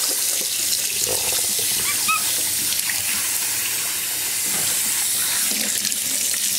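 Kitchen tap running steadily into a stainless steel sink, with water splashing as it is poured by hand over a wet capuchin monkey's head and back.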